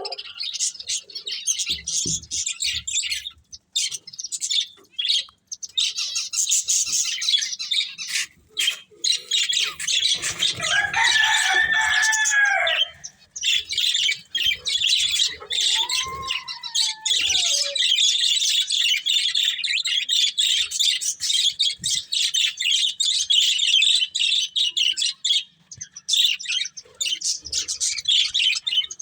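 Budgerigars chattering and warbling in a fast, continuous twitter, with a few lower swooping calls partway through.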